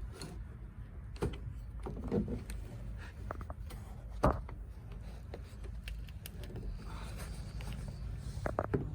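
A few separate clicks and knocks of hand tools and metal parts being handled while seat belt bolts are worked on in a car interior, the sharpest about four seconds in and a small cluster near the end, over a low steady hum.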